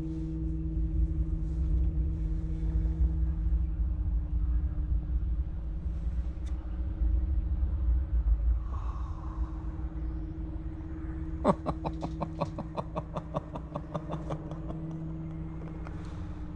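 Steady low rumble with a constant hum. Past the middle comes a quick run of about twenty sharp, evenly spaced clicks lasting about three seconds.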